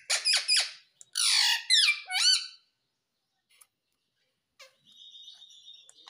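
Indian ringneck parakeet squawking: a quick run of short calls, then loud harsh squawks with sliding pitch for about a second and a half. After a pause, a faint steady high tone comes in near the end.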